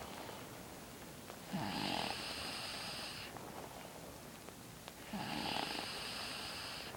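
A sleeping person snoring: two snores, each about two seconds long, coming about three and a half seconds apart.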